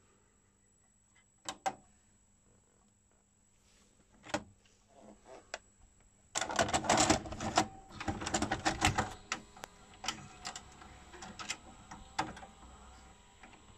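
A VHS cassette pushed into the front slot of an Akai VS-G440 four-head VCR, its loading mechanism drawing the cassette in and threading the tape with about three seconds of motor whirring and dense clattering clicks about halfway through, then a few scattered clicks as it settles. A couple of single clicks come earlier as the cassette is handled.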